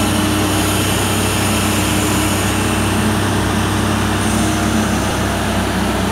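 Mobile crane's diesel engine running steadily as it holds a suspended silo, a constant low hum with no breaks.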